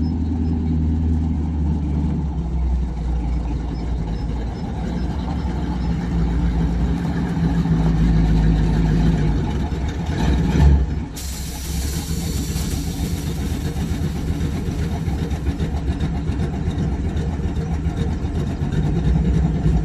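Custom 1951 Ford F1 pickup's 383 small-block stroker V8 running steadily as the truck rolls up, with a brief swell just past ten seconds. About a second later the air suspension lets out air with a sudden hiss that fades over several seconds as the truck is lowered to the ground, the engine still running underneath.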